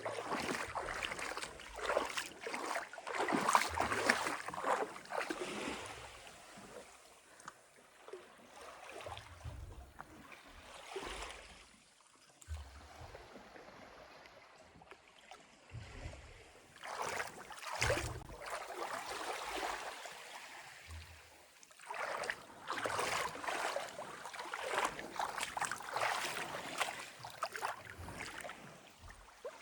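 Small sea waves lapping and splashing, rising and falling in irregular surges of a few seconds, with a few short low bumps.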